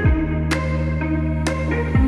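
Background electronic music with a deep bass line and a steady beat.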